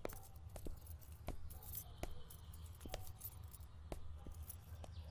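Faint footsteps: light, irregular clicks about three a second over a low steady hum.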